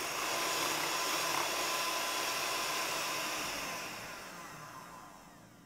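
Electric hand mixer with twin beaters whipping egg whites and caster sugar in a glass bowl into meringue: a steady motor whir that fades away over the last two seconds.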